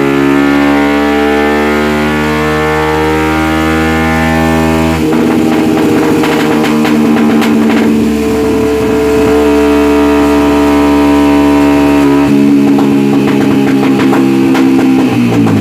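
Tuned 62 mm-bore motorcycle engine with an aftermarket head, cam, carburettor and exhaust, run hard on a dyno at high revs. Its note holds fairly steady, shifts abruptly about five seconds and about twelve seconds in, and the revs fall away near the end.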